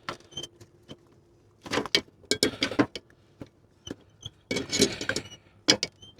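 Hard plastic parts of a headlight bulb and its wiring connector clicking and rattling as they are twisted and worked loose from the headlight housing. There are bunches of sharp clicks about two seconds in and again near five seconds.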